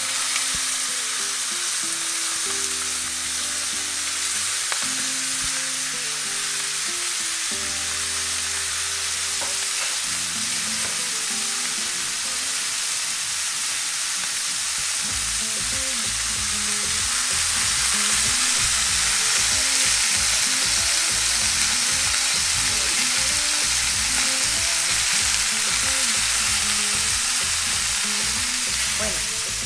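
Flour-dredged stuffed chicken breasts and garlic frying in hot oil in a pan, a steady sizzle that grows louder about halfway through.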